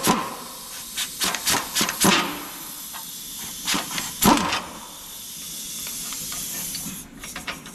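Impact wrench running on a front differential mounting bracket bolt: a steady hissing buzz, with sharp metallic knocks in the first few seconds, that stops suddenly about seven seconds in.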